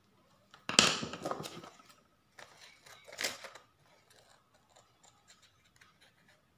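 Scissors cutting a sheet of thin folding paper: a loud paper rustle about a second in and another near the middle as the sheet is handled, then a run of small, quiet snips.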